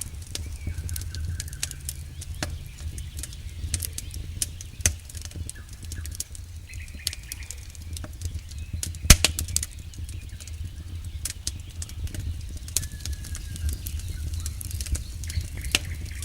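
Wood campfire crackling, with irregular snaps and pops and one louder snap about nine seconds in, over a steady low rumble.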